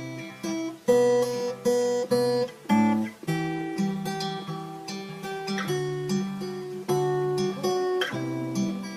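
Music: an acoustic guitar strumming chords in a steady rhythm, the chords changing every second or so, with no singing.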